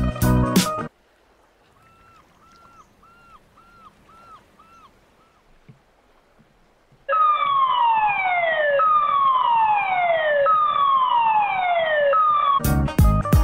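Dam warning siren: a loud tone that falls in pitch and restarts high, three times in a row, beginning about seven seconds in after a few near-quiet seconds with faint short repeated tones.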